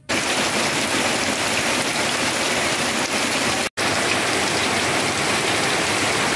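Heavy rain pouring onto puddled ground, a dense, steady hiss of drops splashing into standing water. It breaks off for an instant a little over halfway through.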